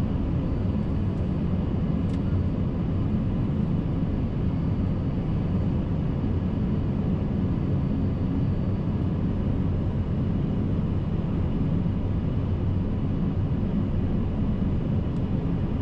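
Steady low rumble of airflow and engines on the flight deck of an Airbus A380 on approach, with faint steady high tones over it.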